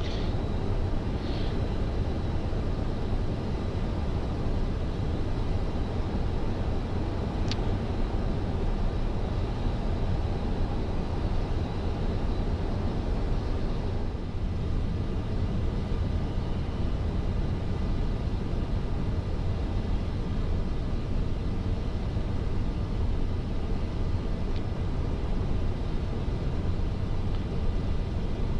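Steady flight-deck noise of a Boeing 747-400 in descent: an even, low rush of airflow and cabin air, with a faint steady high hum. A short click sounds about seven seconds in.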